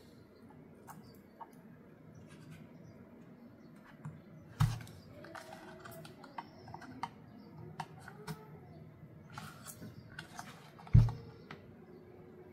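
Light clicks and scrapes of a thin hand tool prying around the plastic mounting bracket of a factory car door speaker, to free the speaker from the bracket. Two dull thumps, one about halfway through and a louder one near the end, as the speaker is moved about on the towel-covered mat.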